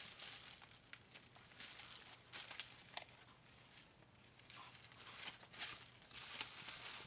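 Faint, intermittent crinkling and crackling of plastic bubble wrap and packing bags being handled.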